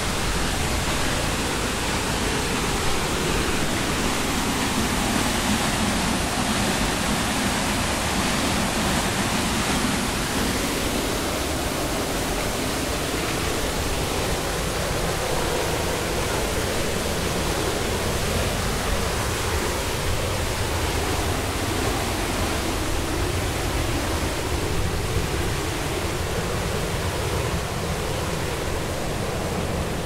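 Steady rushing of a waterfall and a river running over rocks.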